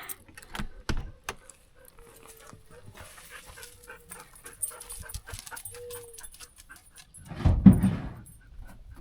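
Dog whining softly: a thin, held whine in the middle, among small clicks and knocks, followed by a louder short sound from the dog near the end.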